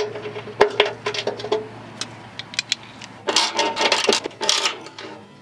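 Metal clinks of a socket wrench being fitted onto a bolt under a truck, then a run of ratchet clicking about three seconds in as the bolt holding the KDSS hydraulic-line bracket is loosened.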